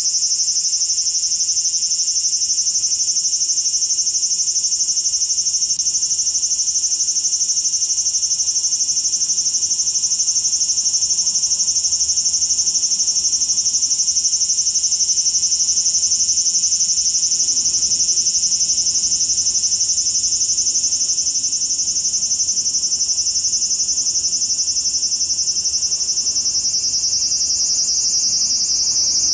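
Large brown cicada (aburazemi, Graptopsaltria nigrofuscata) singing close by: one continuous, loud, high buzz, steady throughout and shifting slightly in pitch near the end.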